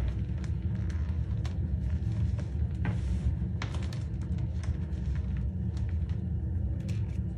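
Reformed clumps of dyed cornstarch being squeezed and crumbled by hand, giving short, irregular squeaky crunches and crackles, with a soft powdery hiss as it falls about three seconds in. A steady low rumble runs underneath.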